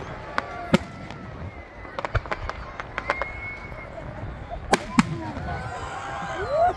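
Aerial fireworks shells bursting overhead with sharp bangs. There is a quick string of cracks about two seconds in, and the two loudest bangs come about five seconds in.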